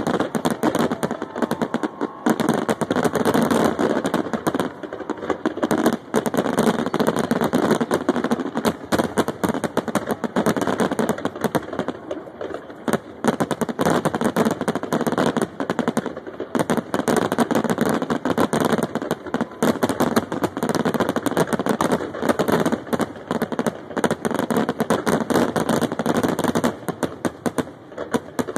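Fireworks display in a dense barrage: many aerial shells bursting in quick succession, an almost unbroken rattle of bangs and crackles that eases briefly near the middle.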